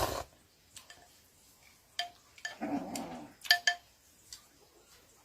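A short, rough animal sound about two and a half seconds in, among several sharp clicks and knocks.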